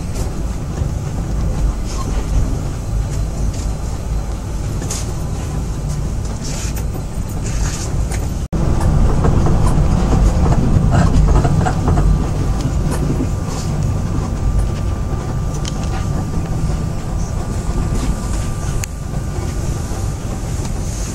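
Moscow monorail train running between stations, heard from inside the car: a steady low rumble with a faint steady high whine in the second half. The sound breaks off for an instant about eight and a half seconds in and comes back louder.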